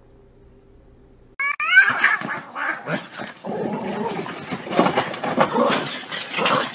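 Cats fighting: starting suddenly about a second and a half in, a yowl that rises and falls, then a loud, harsh run of screeching.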